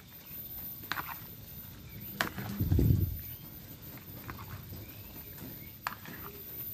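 A spoon stirring boiled potato cubes, onion and soaked pakoras in a plastic bowl: soft squelching with a few light clicks of the spoon on the bowl, and one louder squelchy stir about three seconds in.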